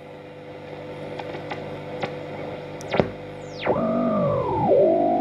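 Bush VHF 61 valve radio's loudspeaker on the VHF band, giving mains hum and hiss. About three seconds in, a whistle falls sharply in pitch, then warbling tones bend up and down as the set is tuned. It is poor reception, which the owner thinks may be down to the aerial.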